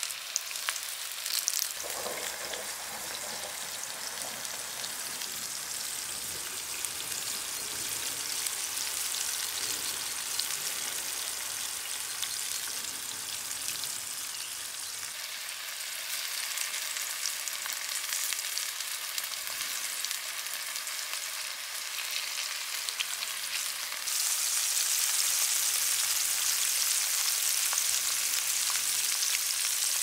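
Chicken strips deep-frying in hot oil in a pan over a campfire: a steady sizzle with a few sharp pops near the start. The sizzle gets louder about three-quarters of the way through.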